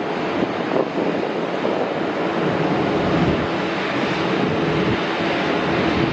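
Boeing 737 airliner's jet engines running loud as it rolls out down the runway after landing: a steady rushing noise, with a low steady hum coming in about halfway through.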